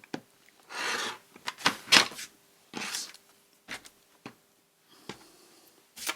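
Paper being trimmed and handled at a craft table: two short scraping strokes and a series of sharp taps and clicks, the loudest about two seconds in.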